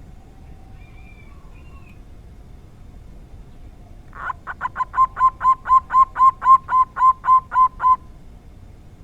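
Zebra dove (perkutut) cooing: a rapid, even series of about fifteen short notes, about four a second, starting about four seconds in and growing louder before stopping near the end, over a steady low hiss.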